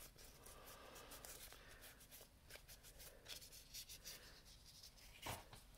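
Faint, scratchy rubbing of a lint-free pad against fingernails as they are wiped clean with alcohol, with a soft knock of handling near the end.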